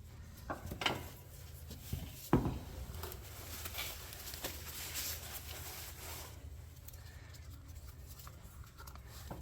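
A few light hammer taps on the CV axle's outer joint, the loudest about two and a half seconds in, followed by scraping and handling of the parts: an attempt to knock the joint off the shaft past its retaining circlip.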